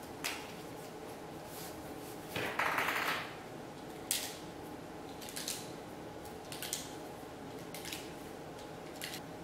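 Irregular small metallic clicks of 10mm cartridges being handled and pressed into a pistol magazine, with a short rustle about two and a half seconds in.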